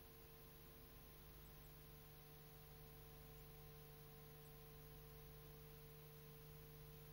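Near silence: a steady electrical hum and hiss from the recording.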